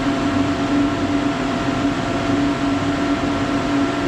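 Steady machine hum from a wire EDM and its running equipment, with a low drone tone that swells and dips slightly and a few fainter steady tones above it. The machine is powered and waiting but not yet cutting.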